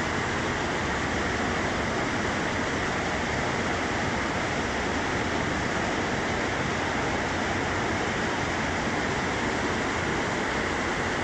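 Steady din of graphite flotation plant machinery running: an even rushing noise with no distinct knocks or rhythm.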